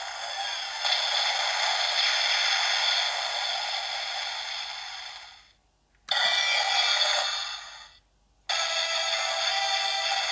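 DX Ohger CrownLance toy lance playing electronic music and sound effects from its built-in speaker, with no bass. Its King Caucasus Kabuto Finish sound fades out about halfway through. A short burst of sound then plays and fades, and after a brief silence the transform sound starts near the end.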